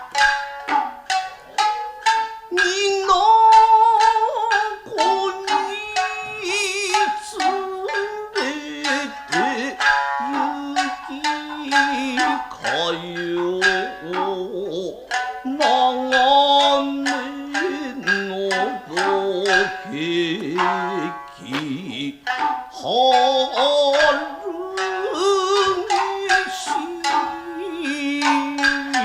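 Nagauta ensemble music: shamisen plucked in a rapid stream of notes, with long held melodic lines weaving over them.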